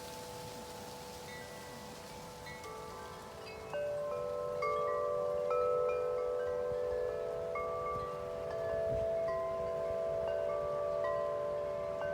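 Wind chimes ringing in strong wind, many long-ringing notes overlapping; the chiming grows louder about four seconds in, with wind noise underneath.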